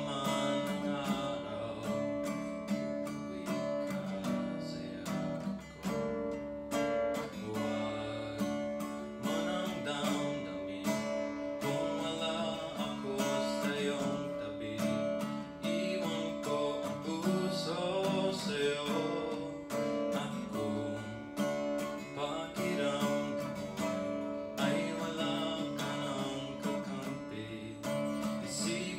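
Acoustic archtop guitar strummed in chords, with a steady run of strokes.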